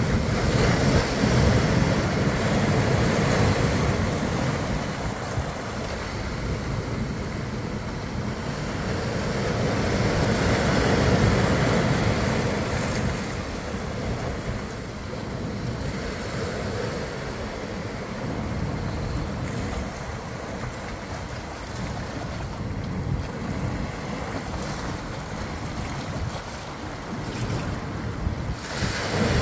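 Ocean surf washing onto the beach, with wind buffeting the microphone. The wash swells louder a couple of seconds in and again about ten seconds in.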